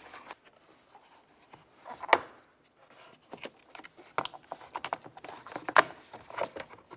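Plastic trim tool prying a door switch panel up out of a car door panel: a series of sharp plastic clicks and snaps as its clips let go, the loudest about two seconds in and again near six seconds.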